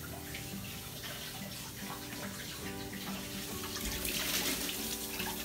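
Kitchen faucet running, water splashing into the sink, louder about four seconds in.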